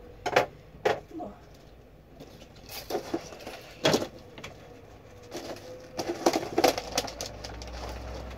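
Scattered knocks and clinks of household items being handled and put away at a camper's small kitchen counter, a few sharp strikes with quieter handling between, and a cluster of clatter about six seconds in.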